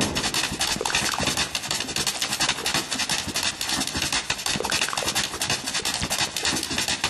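A dog's toenails tapping rapidly on a hard floor: a quick, dense run of sharp clicks.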